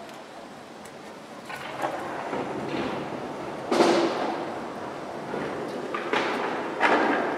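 Feral pigeon striking out with its raised wing in defence: several sharp, noisy wing slaps and swishes, the loudest about four seconds in.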